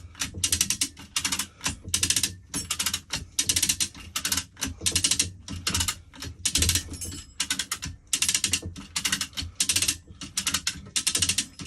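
A ratcheting hoist being worked stroke after stroke, its pawl clicking in quick bursts about two a second, to lift a sailboat's inboard engine.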